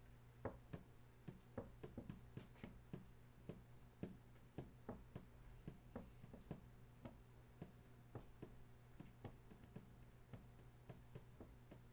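Faint, irregular light clicks and taps, about three or four a second, over a steady low electrical hum.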